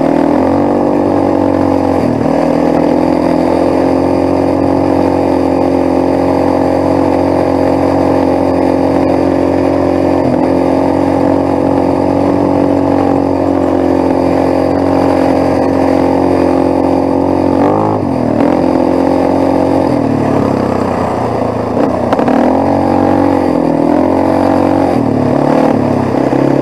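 Quad (ATV) engine running steadily while riding. Its pitch dips and rises briefly as the throttle eases and opens a few times, more often in the last several seconds.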